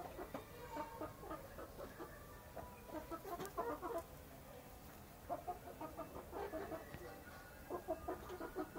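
Chickens, a rooster and two hens, clucking while they feed, in runs of short quick clucks with brief pauses between.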